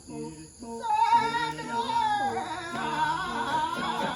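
Music with singing: a stepped, repeating lower melodic line, joined about a second in by a louder, wavering high sung voice.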